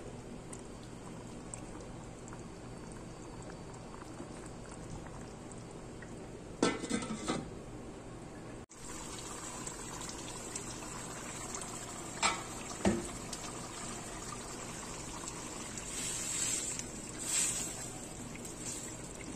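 Sardines in tomato sauce simmering in a stainless steel wok, a steady bubbling with a few sharper pops and clicks along the way.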